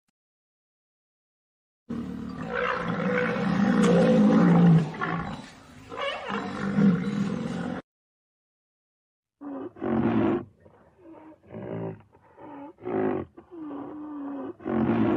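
A large animal calling: a long, rough, low call lasting about six seconds, then after a short pause a series of short calls about one a second.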